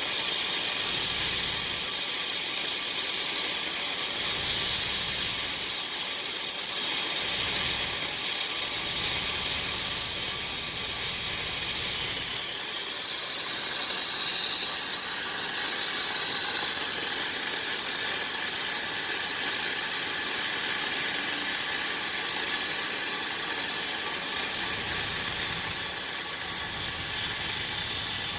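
Gas cutting torch on a homemade cutting carriage, hissing steadily as it cuts through steel. The hiss turns a little sharper about halfway through.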